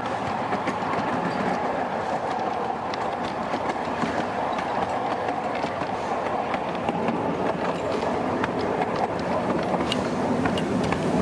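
Miniature steam railway train running along ground-level track: a steady running noise with many small clicks from the wheels on the rails.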